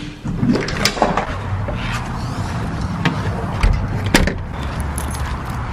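A door's lock hardware being worked: a few sharp clicks and knocks as a deadbolt is turned and the door is opened, shut and locked with a key, over a steady low rumble.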